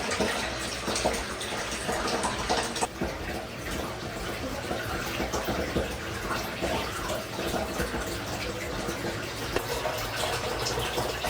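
Water running into the capsule of a human washing machine as it fills: a steady rushing of water.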